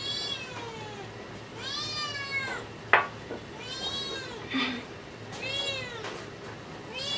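A cat meowing over and over: drawn-out meows that rise and fall in pitch, about four of them, the last cut off at the end. A single sharp tap sounds about three seconds in.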